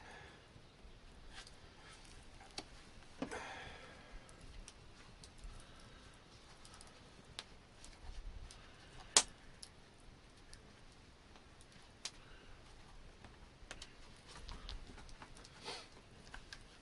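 Faint handling of a small leather pouch and bone awl: scattered small clicks and short rustles, with one sharper click a little past the middle.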